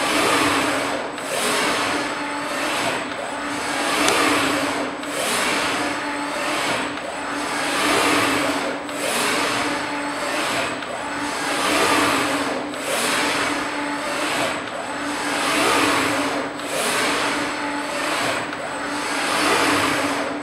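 Etasis Beshic 800 five-axis CNC machining center running a fast simultaneous-motion point-tracking test at a 50,000 mm/min feed, its axes, tilting-rotary table and spindle head whirring as they move. The noise swells and fades about once a second with each repeated move, over a steady hum.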